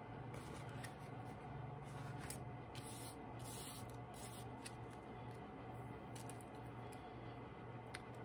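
Faint rustling and crinkling of a glued, tissue-covered paper sheet being handled, laid down and smoothed by hand, mostly in the first half, with a few light clicks. A low steady hum runs underneath.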